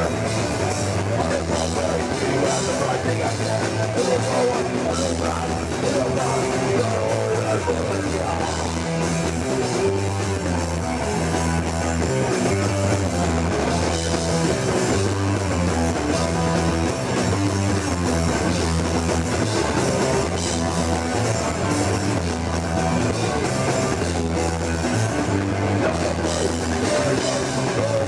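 Punk band playing live: electric guitar, bass guitar and drum kit going full-on without a break.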